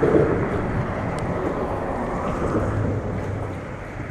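Steady low outdoor rumble with no speech, strongest in the low end, with a faint hum coming and going around the middle.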